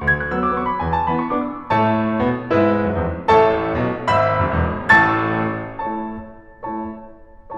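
Background piano music: a solo piano playing struck chords and a melody, with its loudest chords a little past the middle and a softer passage near the end.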